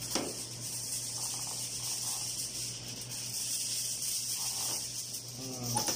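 Aluminium foil rustling and crinkling as a large sheet is handled over a foil tray, against a steady background hiss and low hum.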